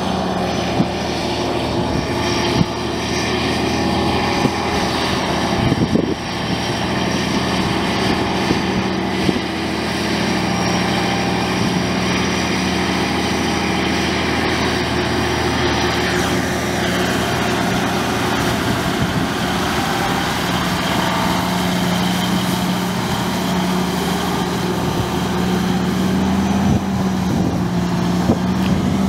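The Cummins 14-litre six-cylinder diesel of a 1981 Versatile 895 four-wheel-drive tractor running steadily as the tractor drives, a constant engine drone that grows a little louder near the end as the tractor comes closer.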